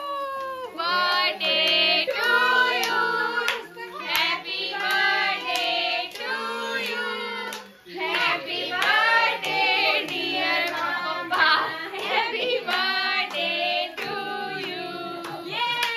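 Several voices, children's among them, singing together with steady hand clapping about twice a second.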